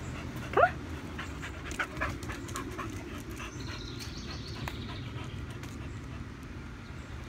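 Red-nosed pit bull panting steadily, with one short rising whine about half a second in.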